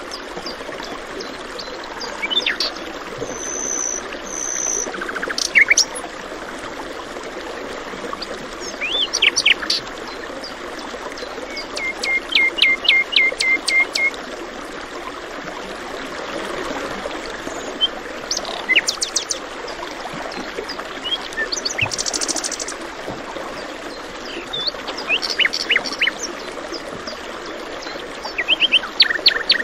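Songbirds calling and singing in short chirps and trills over the steady trickle of running water, one bird repeating a quick run of even notes about midway.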